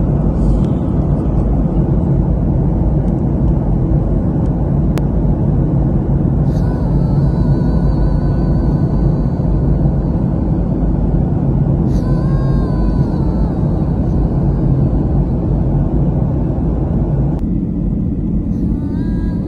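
Steady rumble of a jet airliner's cabin noise in flight, the turbofan engines and airflow heard from inside the cabin by the window.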